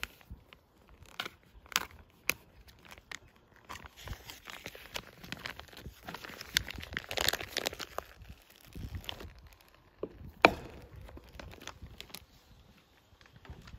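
Crinkling and crackling handling sounds with scattered light clicks and knocks, the sharpest click about ten and a half seconds in.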